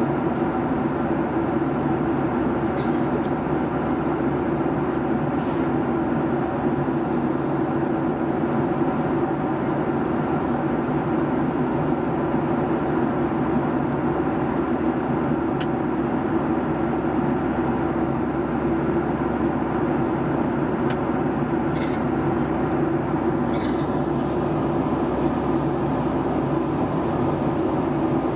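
Steady cabin drone of a Boeing 757-200 in flight, the hum of its Rolls-Royce RB211 engines mixed with airflow noise. A few faint clicks sound over it.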